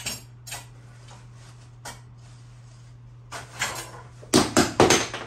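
Paper towels being pulled and torn from a roll: a few light clicks and rustles, then a run of loud rustling and tearing strokes near the end. A low steady hum runs underneath.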